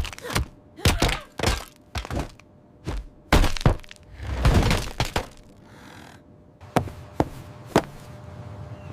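A rapid series of sharp thuds, knocks and cracks, like scuffle or crash sound effects, with a longer rushing swell about four and a half seconds in and three more sharp knocks near the end.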